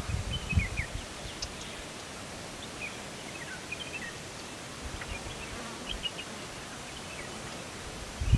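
Forest ambience: a steady hiss with scattered short, high bird chirps, and a few low thumps in the first second.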